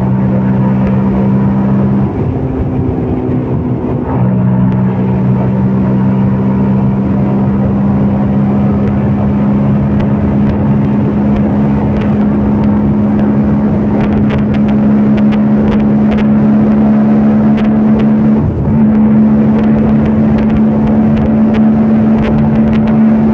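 CFMOTO Papio 125's single-cylinder engine running under steady throttle while riding, its revs dropping briefly about two seconds in and cutting out for a quick gearshift near the end, after which the engine note slowly climbs.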